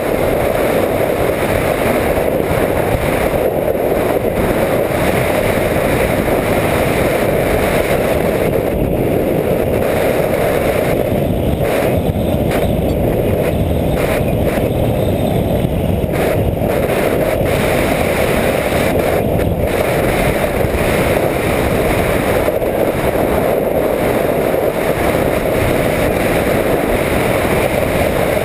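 Steady rush of airflow and motor noise heard through a GoPro riding on a Skywalker 1900 FPV plane in flight. The upper part of the noise dips briefly a few times.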